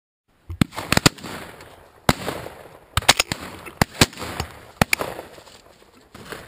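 Shotgun fire from several guns at a pheasant shoot: about ten sharp reports in quick succession, starting about half a second in, some in close pairs and some louder and nearer than others, each with a short echoing tail.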